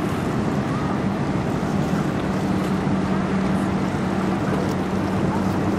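Steady low drone of a passing cargo ship's engine, under wind buffeting the microphone and waves washing.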